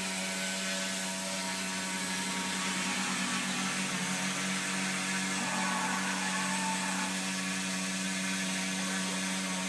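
O.S. 95AX single-cylinder two-stroke glow engine of a radio-controlled model running steadily at hover, holding a constant high buzzing pitch.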